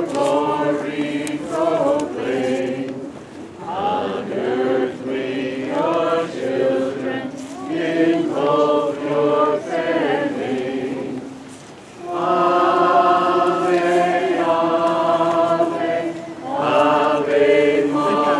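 A group of voices singing a Marian hymn in phrases with short breaths between them, with a longer sustained phrase starting about twelve seconds in.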